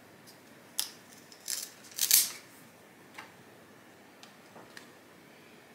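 Hand pruning clippers snipping through thick philodendron stems: a few sharp snips, the loudest about two seconds in, then fainter clicks.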